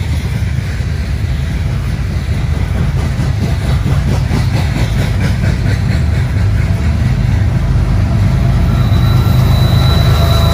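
Loaded coal hopper cars rolling past with a steady low rumble and a rhythmic clickety-clack of wheels over the rail joints. Near the end the rumble swells as the rear helper diesel locomotives pushing the train draw close, and a high squeal comes in.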